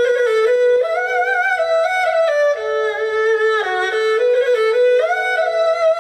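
A Chinese two-string fiddle (huqin) bowed solo, playing a melody that steps and slides between notes in a bright, high register.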